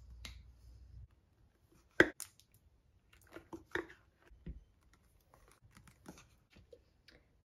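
Plastic paint pots being handled and squeezed out onto a plastic palette tray: a sharp click about two seconds in, then scattered soft clicks, taps and squelches.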